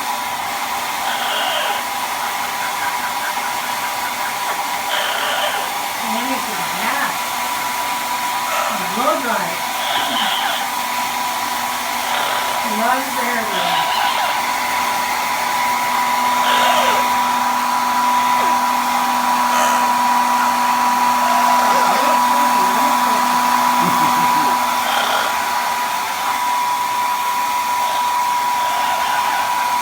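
Handheld hair dryer blowing continuously, a steady rush of air with a constant whine.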